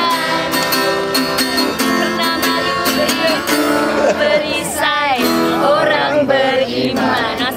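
A song played on a strummed acoustic guitar, with a voice singing over it.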